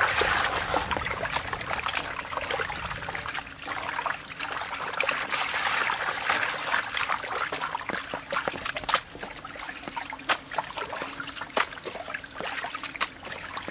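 A stream of running water pours and splashes onto raw beef ribs in a stainless steel basin as hands rub and rinse the meat, with wet sloshing and scattered sharp clicks and knocks, mostly in the second half.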